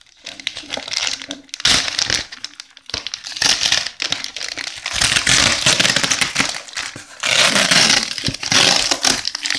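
Plastic packing material crinkling and rustling as hands pull it out of a cardboard box, in several loud spells.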